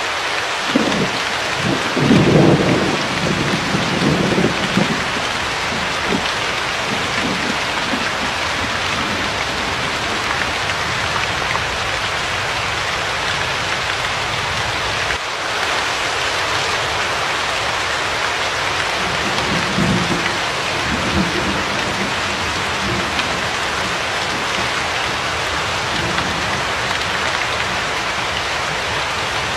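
Steady heavy rain with thunder rumbling: a louder roll about two seconds in and a fainter one about twenty seconds in.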